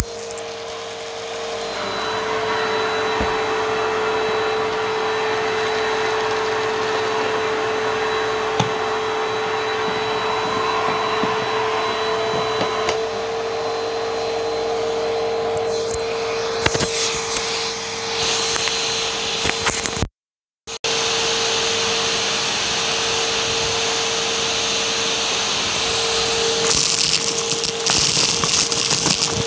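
Vacuum cleaner motor running steadily through its hose, with a constant whine. The sound drops out for a moment about two-thirds of the way through. Near the end it turns rougher and crackly as dry, crunchy debris rattles up the hose.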